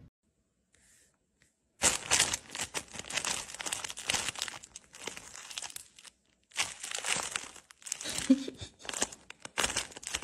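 Thin clear plastic bag crinkling in irregular crackly bursts as a kitten shifts about inside it. The crinkling starts about two seconds in, after a near-silent start, and pauses briefly about six seconds in.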